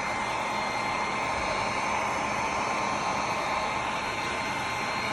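Heat gun blowing steadily, a rush of hot air with a faint fan whine, shrinking heat-shrink tubing over freshly soldered XLR pins.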